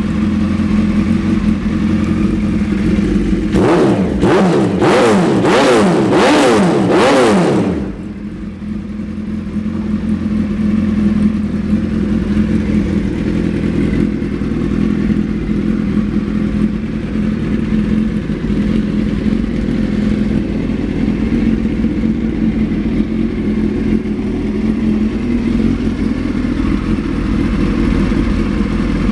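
2005 Suzuki Hayabusa's 1299 cc inline-four engine idling steadily, blipped up and down about six times in quick succession a few seconds in, then settling back to a steady idle.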